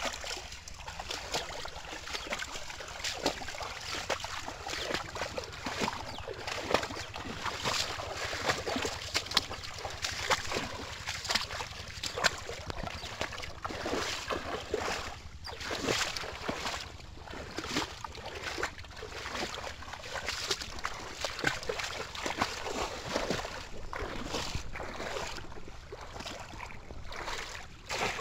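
Shallow water splashing and sloshing around the legs of someone wading, with irregular splashes as a bamboo polo fish-trap basket is thrust down into the water.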